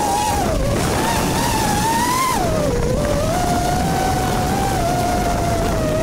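FPV racing quadcopter's motors and propellers whining from on board, over a steady rush of air. The pitch climbs to a peak about two seconds in, drops sharply just before three seconds, then holds fairly steady as the throttle settles.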